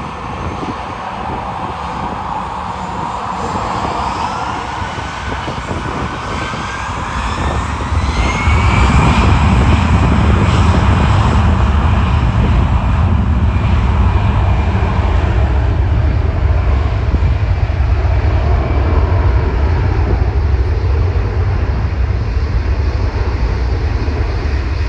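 Jet engines of an easyJet Airbus A320-family airliner spooling up for takeoff: a whine rising in pitch over several seconds, then a loud, steady low rumble at takeoff thrust from about eight seconds in as it rolls down the runway.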